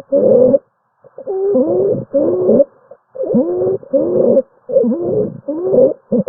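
Stridor: a pitched, wavering, crowing breath noise repeated in quick half-second bursts, roughly ten in six seconds, with the sign of a narrowed upper airway.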